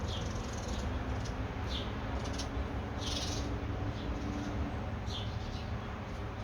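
Short high chirps, one every second or so with a longer one about three seconds in, over a steady low outdoor rumble.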